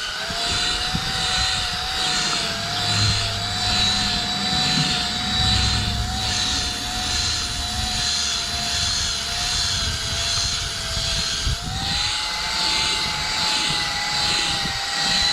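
Electric power tool, likely a drill with a buffing pad, running steadily while polishing a foggy headlight lens. Its whine pulses about twice a second with the strokes and steps up in pitch about twelve seconds in.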